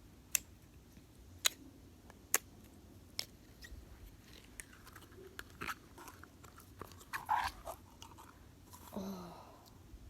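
Clear jelly slime being handled: a few sharp pops and clicks of air bubbles in the slime, then softer, wetter squishing and crackling as it is worked in the hands.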